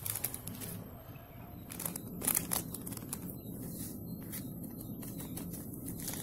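Plastic coffee packet crinkling and rustling as it is handled and opened, with a cluster of sharp crackles about two seconds in.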